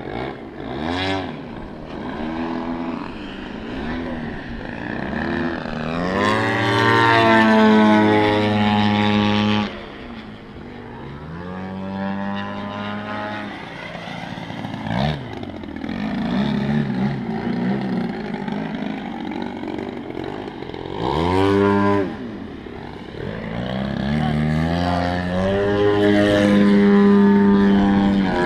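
Engine and propeller of a giant-scale Extra 330SC radio-controlled aerobatic plane in flight, the pitch rising and falling with throttle changes and passes. It is loudest from about six seconds in until the throttle is chopped and the sound drops off sharply near ten seconds, and it builds to full power again near the end.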